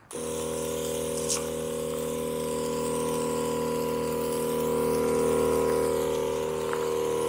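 The 12-volt electric pump of a battery-powered backpack sprayer runs steadily at about 12 volts while spraying water. It gives an even, steady hum.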